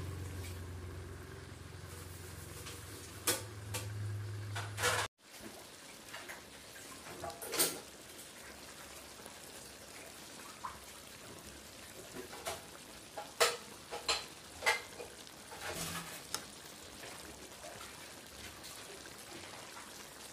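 Pork menudo stew faintly sizzling in a pan, with scattered clinks and scrapes of a spatula stirring it against the pan. For the first five seconds a low steady hum sits under it, cut off abruptly.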